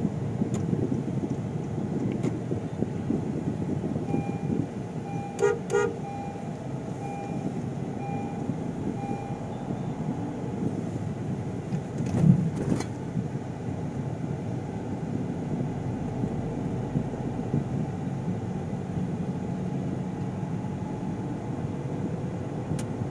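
Steady engine and road noise of a moving car, heard from inside the cabin. About five seconds in, a vehicle horn gives two quick honks over a run of short, evenly spaced beeps lasting a few seconds. A single loud thump comes about twelve seconds in.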